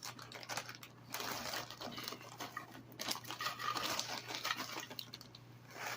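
Close-miked chewing and mouth sounds: a person eating, with a run of small wet clicks and crunches.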